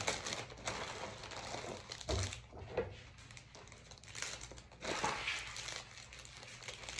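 Plastic mailer bags and packaging crinkling and rustling as a parcel is opened by hand, with a pair of scissors cutting through the plastic. The crinkling swells and fades several times.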